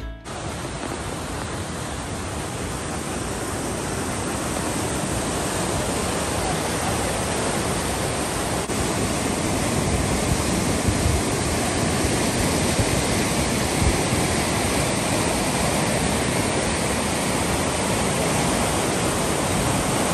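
Fast creek rapids: white water rushing over rocks in a steady, loud, unbroken rush that grows slightly louder over the first several seconds.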